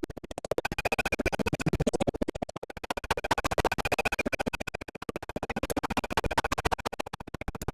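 Electronic, scratch-like sound effect: a rapid stutter of many pulses a second, swelling and fading in repeating waves.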